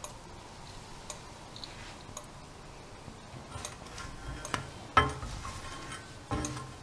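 Scattered light clicks and knocks of a kitchen utensil against a frying pan, the sharpest knock about five seconds in and a couple more near the end.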